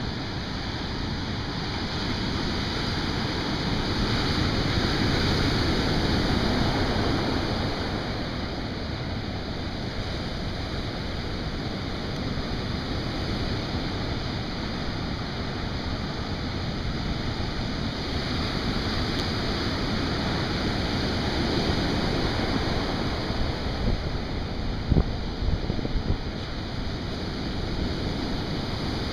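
Heavy ocean surf: big waves breaking and washing up the beach in a steady rush that swells louder twice as sets come in. A few brief low thumps near the end.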